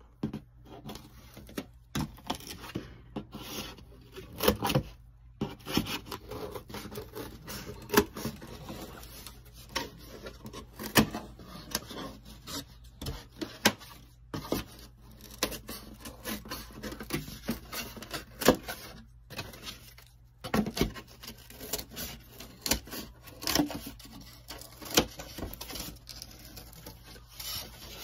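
Scissors cutting through foam board: an irregular series of sharp snips, with the board rubbing and scraping against the blades between them.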